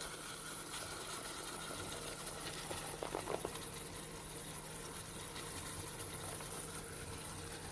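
Ground beef sizzling faintly in a pot, over a steady low hum, with one brief faint sound about three seconds in.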